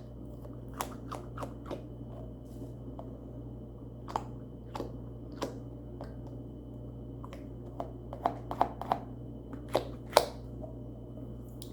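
Small objects being handled: irregular light clicks and taps, more frequent near the end, over a steady low electrical hum.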